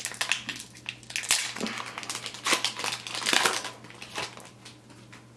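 Wrapper of a 2020-21 Upper Deck Series 1 hockey card pack being torn open and crinkled by hand: irregular crackling for about four seconds, then it stops.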